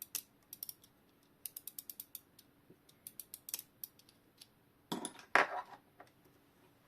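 Ratchet and click of a Junghans wall clock's mainspring clicking as the spring is worked and wound, with a quick run of clicks about a second in and a louder rattle of the movement near five seconds; the mainspring is still slipping and not holding its wind.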